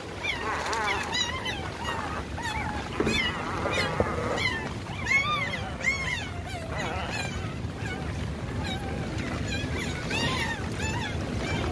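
Young puppies crying: many short, high squeals that rise and fall, coming in quick irregular succession, over sloshing water.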